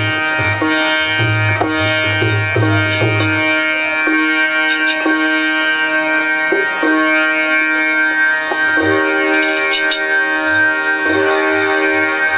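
Instrumental folk music: a benju (bulbul tarang, a keyed plucked-string instrument) plays a plucked melody. A drum thuds steadily for the first few seconds, stops, and comes back as scattered strokes near the end.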